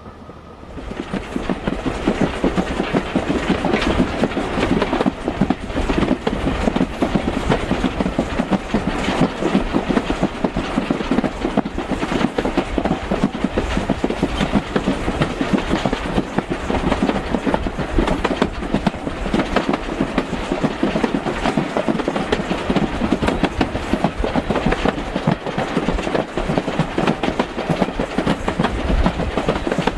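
Heritage railway carriage running along the line, its wheels clattering steadily over the track. The noise gets much louder about a second in and then holds steady.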